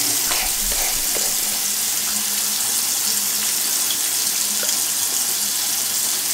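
Water running steadily from a bathroom sink tap.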